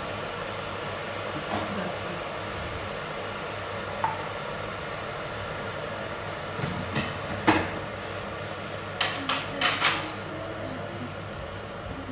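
Kitchen wall cabinet and dishes clattering as things are taken down from the shelf: scattered knocks and clinks, a quick cluster of four near the end and the loudest about seven and a half seconds in, over a steady fan hum.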